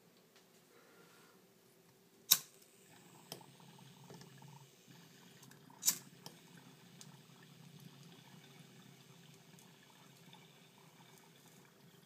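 Water bubbling through a glass bong's double honeycomb percolators as smoke is pulled through, a faint low gurgle. Two sharp clicks, the loudest sounds, come about two seconds in and just before the six-second mark.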